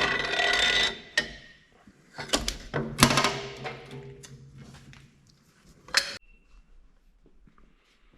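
Steel engine parts and tools clanking and scraping as wet cylinder sleeves are worked out of a tractor engine block: a ringing metal scrape at first, then several sharp metallic knocks about two to three seconds in and one last sharp clank about six seconds in.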